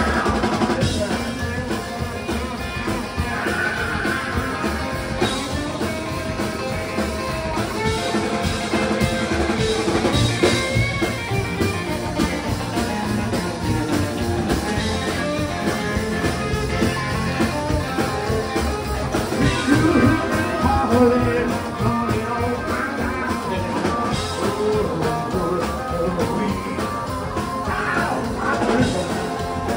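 Live rock-and-roll band playing a blues number: an orange hollow-body electric guitar takes the lead over upright bass, drums and acoustic rhythm guitar, with singing.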